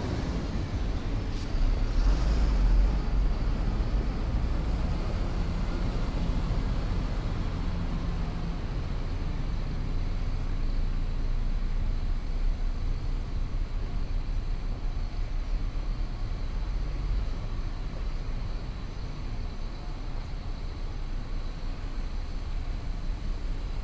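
City street ambience: a steady low rumble of road traffic, a little louder about two seconds in.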